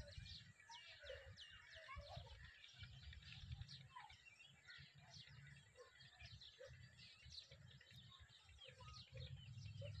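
Faint chorus of birds chirping and calling: many short, quick downward-sliding chirps high in pitch, mixed with short lower notes, over a low intermittent rumble on the microphone.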